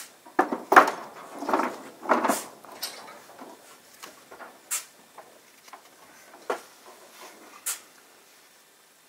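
Hand stone-laying on a wall: rough scraping and clunking of stone and mortar in the first two or three seconds, then a few sharp, separate taps.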